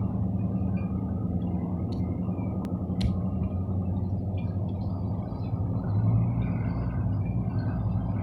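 Steady low rumble of an idling vehicle engine, with a constant low hum and a few faint clicks about two to three seconds in.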